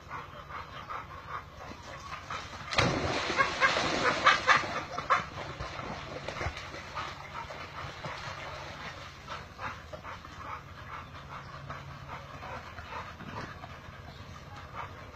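Dogs yipping and whimpering on and off, with a louder, noisy burst about three seconds in that lasts around two seconds.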